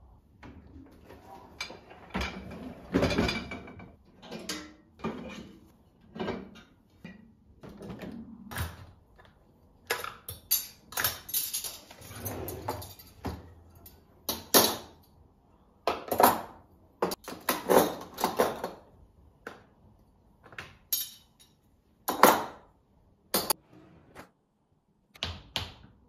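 Metal cutlery and dishes being handled and put away: a long string of separate clinks, knocks and clatters, some sharp and bright.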